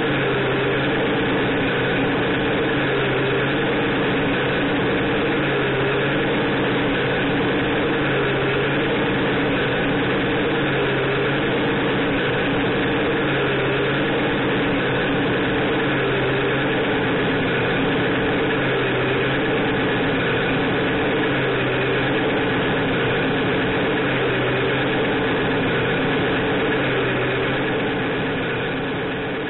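Simulated diesel truck engine from an RC truck's electronic sound module (Beier USM-RC2), running at a steady pitch as a recorded loop that repeats about every two and a half seconds. It fades out near the end.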